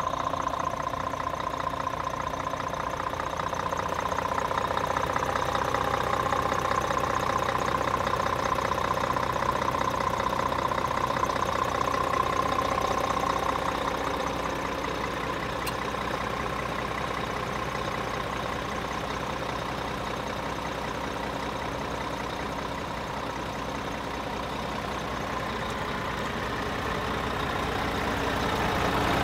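Scania R450 truck's 13-litre straight-six diesel engine idling steadily.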